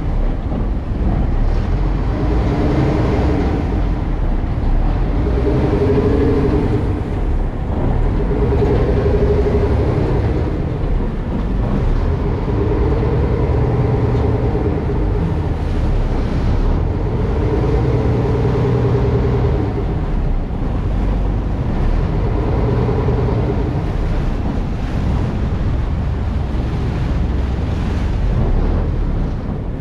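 Steady engine rumble with wind buffeting the microphone, and a pitched motor note that swells and fades every few seconds.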